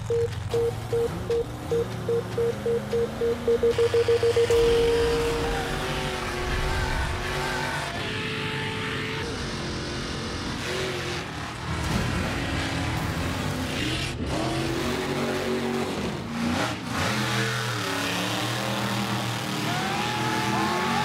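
Start-signal beeps that come faster and faster and end in one long tone, then mega truck engines revving hard as they launch and race over the rutted mud track. One of them is a 498 big-block V8 running on methanol.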